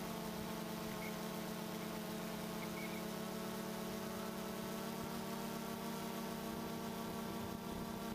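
DJI Phantom 2 quadcopter's four electric motors and propellers humming steadily in flight, heard through the GoPro camera mounted on the drone.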